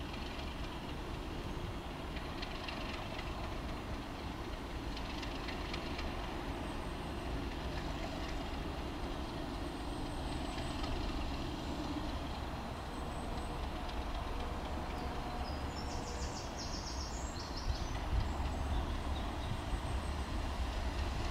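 BR Class 37 diesel locomotive approaching slowly, its English Electric V12 engine running with a steady low rumble that grows louder near the end. A few sharp clicks near the end come from wheels over the pointwork.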